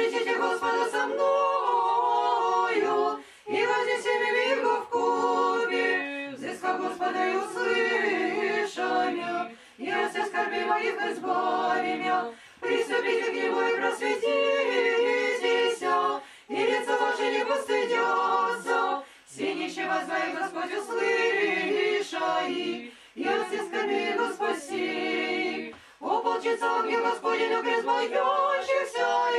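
A choir singing Russian Orthodox liturgical chant unaccompanied, in phrases of a few seconds each with brief pauses between them.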